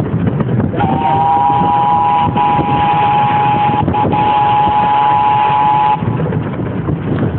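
Miniature train's whistle blowing a steady two-note chord for about five seconds, starting about a second in, with two short breaks midway, over the rumble of the moving train.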